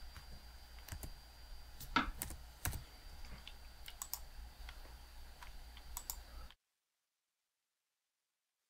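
Computer keyboard keystrokes and clicks, scattered single taps with the loudest about two seconds in. The sound cuts off abruptly to dead silence about six and a half seconds in.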